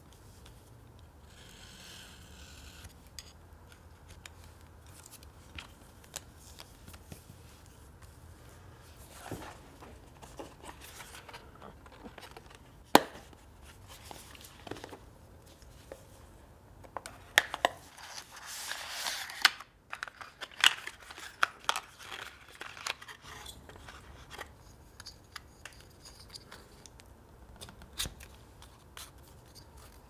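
Leatherwork handling sounds on a marble tabletop: scattered small clicks and taps of hand tools and strap parts, with one sharp tap about thirteen seconds in and a brief rustling scrape a little past the middle.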